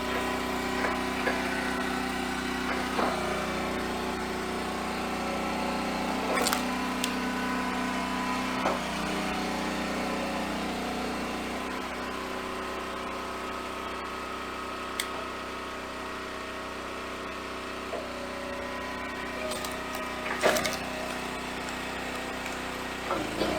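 Engine running steadily to power a hydraulic log splitter splitting firewood, with a few sharp knocks of wood during the work.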